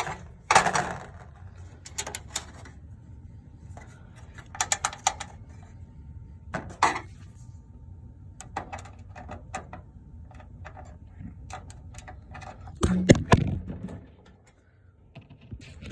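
Screws being driven into the motherboard of a Dell Dimension 5150's metal case: scattered clicks, metallic clinks and scraping from the screwdriver and screws, with a louder clatter about 13 seconds in.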